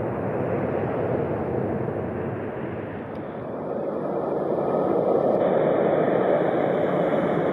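Jet engine noise from twin-engine airliners: a steady rush from a jet climbing away after takeoff, then, after a cut, a Boeing 767 on final approach whose engine rumble grows louder over the last few seconds.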